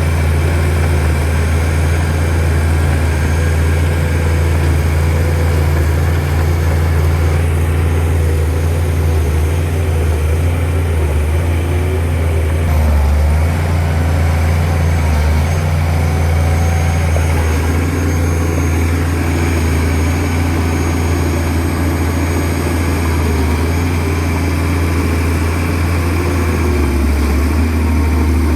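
Shantui DH17C2 bulldozer's diesel engine running steadily under load with a deep, even hum.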